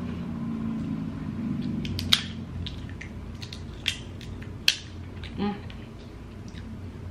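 Dungeness crab shell being cracked and picked apart by hand, with a few sharp snaps and crackles. The loudest come a little over two seconds in and again near the middle.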